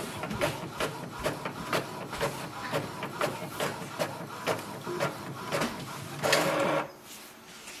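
Epson WorkForce WF-2930 inkjet printer printing a page: the print head shuttles back and forth, about two strokes a second, as the paper advances. A longer, louder run comes about six seconds in, then it goes quiet near the end.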